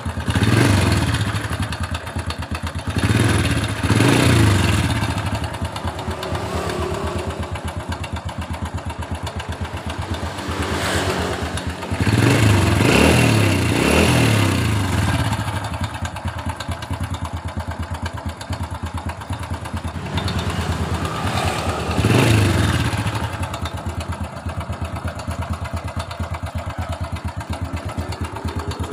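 A 2007 Honda Supra Fit's four-stroke single-cylinder engine idling with a rough, ticking 'kletek-kletek' clatter around the cylinder head, revved up briefly several times. The clatter is typical of a noisy cam chain, which the mechanic goes on to find very slack.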